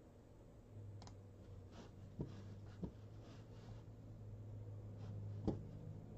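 Scattered sharp clicks of a computer mouse and keyboard being worked, the loudest about five and a half seconds in, over a steady low hum that comes on just under a second in.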